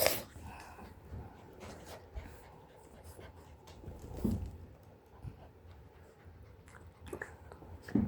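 Pet dogs moving about right up against the microphone: faint scuffling with scattered light clicks, and a soft bump about four seconds in and another near the end.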